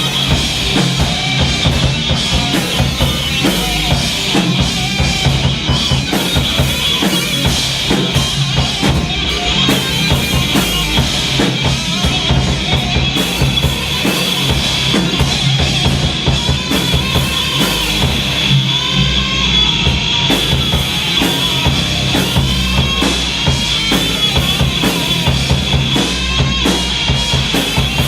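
Live heavy psychedelic/stoner rock band playing loud and steady, with a driving drum kit (kick drum, snare and cymbals) under bass and distorted guitars.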